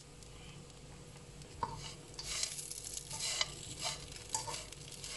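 A spatula stirring and scraping cooked poha (beaten rice) uppumavu around a pan as salt is mixed in. It is quiet at first, then comes in irregular scraping and rustling strokes from about a second and a half in.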